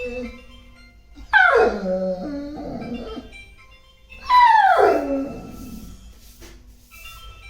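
A dog whining and howling: two loud cries about three seconds apart, each sliding down from a high pitch over about a second, over background music.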